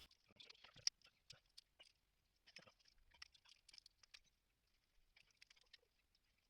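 Faint, scattered small metallic clicks and scrapes of locking grips working a snapped intake manifold bolt out of the cylinder head.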